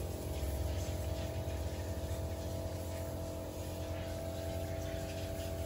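A steady engine drone, like a vehicle running at an even speed, with a constant low hum and unchanging pitch.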